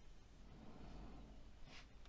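Near silence: room tone with a low hum, and one faint short scrape near the end.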